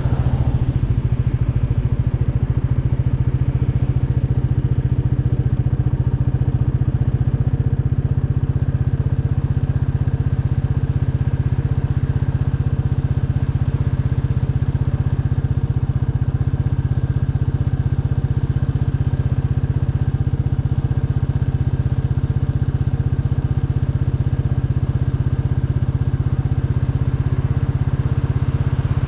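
Royal Enfield Meteor 350's single-cylinder engine idling steadily at a standstill.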